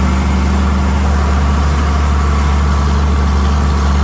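John Deere 4455 tractor's six-cylinder diesel engine running steadily under load, pulling a disc harrow through dry ground: a constant low drone.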